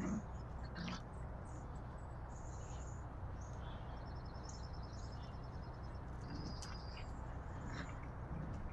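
Small birds chirping, with a quick trill about four seconds in, over a steady low background rumble; two short, fuller sounds come right at the start and about a second in.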